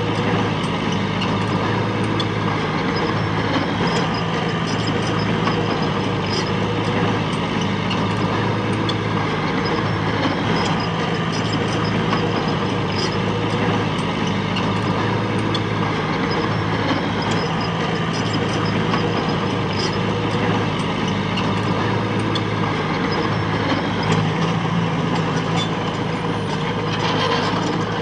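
Diesel engine of heavy machinery running steadily with an even low hum, with faint scattered ticks and clanks over it.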